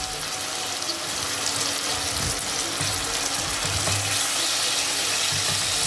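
Sliced onions and chopped tomatoes sizzling steadily in hot oil in a steel pot, stirred with a spatula.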